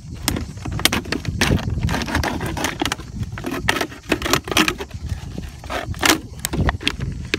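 Utility knife sawing around a thin 5-litre plastic water bottle: the plastic crackles and crinkles in a dense run of irregular clicks as the blade cuts through it and the bottle is turned.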